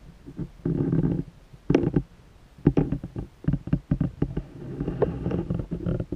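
Underwater noise picked up by a submerged camera: irregular muffled knocks and rumbling bursts, heavy in the low end, about half a second in and on through the rest.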